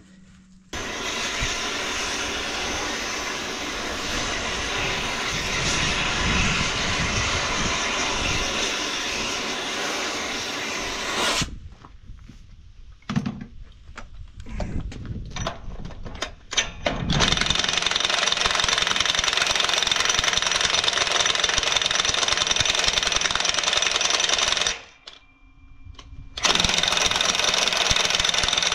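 Cordless impact wrench hammering away in long runs on heated, rust-seized bolts of a truck's leaf-spring trunnion. It stops twice, with a few knocks in the first gap about 12 seconds in.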